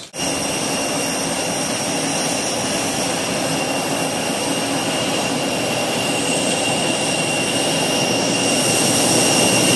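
Jet airliner engines running at high power: a steady rush of noise with several high, steady whining tones, growing a little louder over the last couple of seconds.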